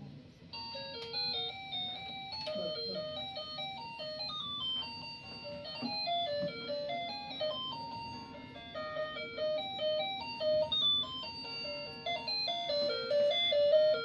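A ride-on toy car's built-in electronic melody: a simple chiming tune of quick single notes, starting about half a second in.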